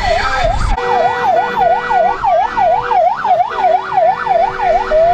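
Vehicle siren in fast yelp mode, its pitch sweeping up and down about four times a second. Just before the end it switches to a slow rising wail, and a lower steady tone sounds on and off beneath it.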